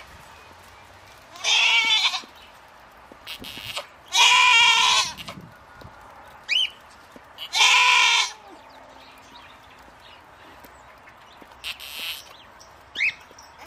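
Goats bleating: three loud calls a few seconds apart, the middle one the longest at about a second.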